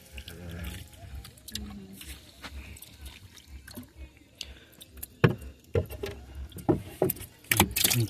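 Water splashing and sloshing with several sharp knocks, the sounds of handling around a small boat on the water, over faint voices in the first couple of seconds. The knocks come more often from about five seconds in.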